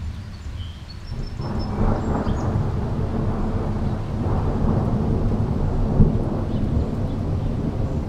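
Thunder rolling in about a second in and rumbling on for several seconds, with a brief louder peak about six seconds in.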